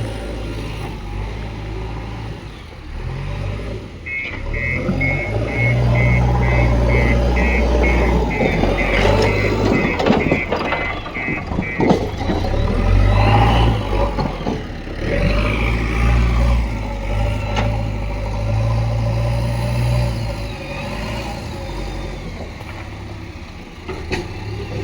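JCB backhoe loader's diesel engine working, its sound swelling and easing repeatedly as the machine digs. From about four seconds in, a reversing alarm beeps about twice a second for some seven seconds, and a few sharp knocks come near the middle.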